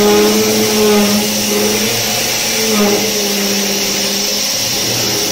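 CNC machining center's 63 mm eight-insert facing head milling a metal plate at 960 rpm and 8,000 mm/min feed: a loud, steady whirring cutting noise with a pitched hum under it that shifts about three seconds in.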